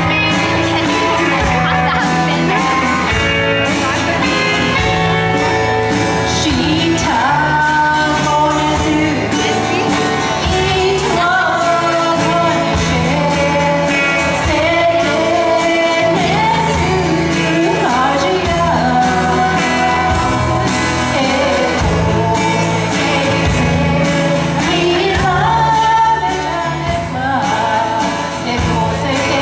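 A woman singing a song over instrumental accompaniment with a steady beat.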